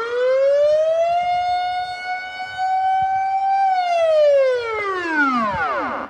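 Dutch civil-defence air-raid siren sounding its test signal, a rising and falling wail: the pitch rises, holds for a couple of seconds, then falls away and stops near the end.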